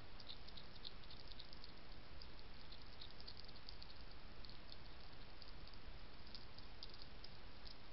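Steady hiss of a trail camera's microphone, with faint, irregular high-pitched ticks scattered through it.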